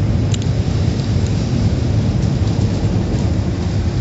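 Automatic car wash heard from inside the car: a steady deep rumble and rush of water and wash equipment working on the car's body, with a couple of brief high clicks near the start.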